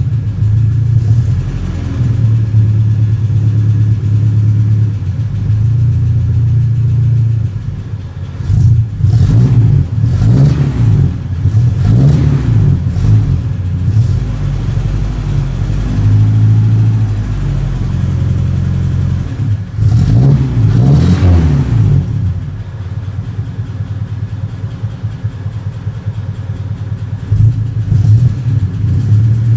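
Chevrolet Opala's 151 cubic-inch four-cylinder engine rumbling at idle, revved in a series of blips about a third of the way in and again a little past two-thirds, then settling back to idle.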